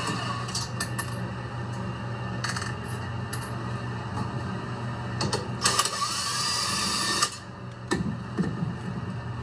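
Power drill-driver taking the mounting screws out of a refrigerator's back cover, running in short spurts and then one longer run that rises in pitch and cuts off suddenly, with a few knocks after it.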